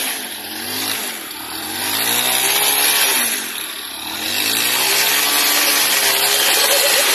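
Small underbone motorcycle's single-cylinder engine revved under load as the bike is forced up out of the river onto a gravel bank, the revs rising and falling back several times.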